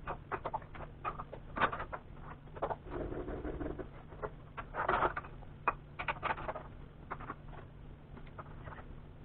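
Irregular clicks, taps and light knocks of metal tools and parts being handled on a milling machine vise during setup, over a steady low hum.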